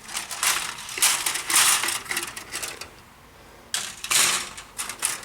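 Plastic model-kit parts on their sprues being picked up and shuffled, clattering and rustling in two bouts, the second near the end.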